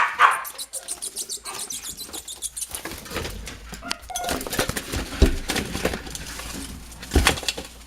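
A small trapped junco fluttering its wings in quick, rapid beats for the first couple of seconds, followed by scattered rustles and knocks, with two louder thumps about five and seven seconds in.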